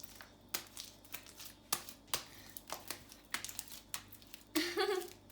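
Homemade snot slime being squeezed and stretched by hand, giving irregular sticky clicks and crackles as it pulls away from the skin.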